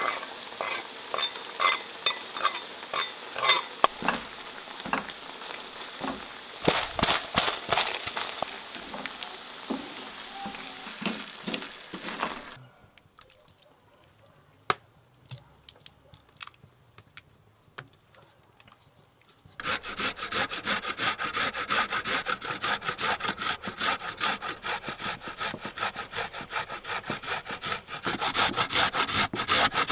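Tomato sauce sizzling in a frying pan, stirred and scraped with a wooden spoon. Then a quiet stretch with a few light spoon taps. About two-thirds of the way in come rapid, even rasping strokes of a beetroot being grated on a metal box grater.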